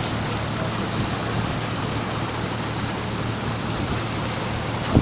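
River boat's engine running steadily under a constant rush of water and wind noise as the boat moves along.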